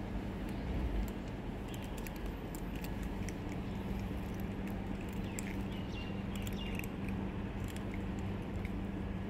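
Cats crunching dry kibble: scattered small crisp clicks over a steady low hum of background noise.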